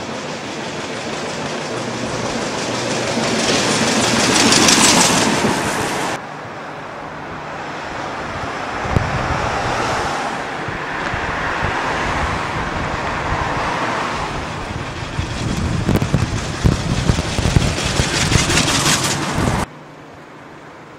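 Road and wind noise from a moving vehicle in traffic. It swells over the first few seconds and cuts off abruptly about six seconds in. It then resumes, turning choppy with sharp spikes before dropping away suddenly near the end.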